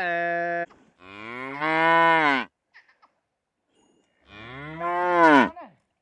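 Water buffalo lowing in three calls: a short flat one at the start, then two longer calls of about a second and a half each that rise and fall in pitch.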